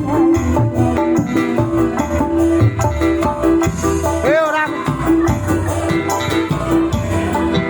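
Music: a song playing through an instrumental stretch with a steady repeating beat and bass line, and a short bending melodic phrase about halfway through.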